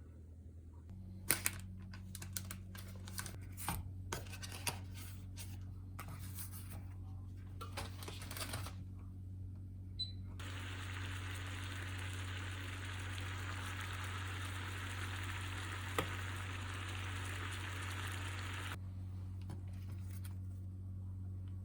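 A run of sharp clicks and knocks, then a steady hiss for about eight seconds that cuts off suddenly, over a low steady hum.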